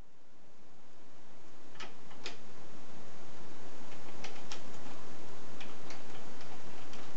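Steady hiss that fades in at the start, with a few scattered, irregular light clicks from about two seconds in as a small steel clamp is handled and seated under a lathe carriage.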